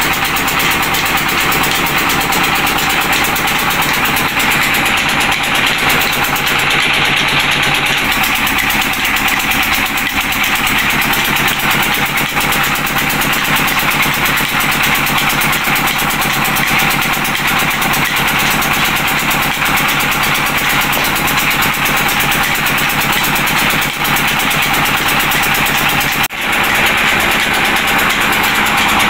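Belt-driven flour mill grinding wheat, running with a loud, steady mechanical noise. It dips briefly once near the end.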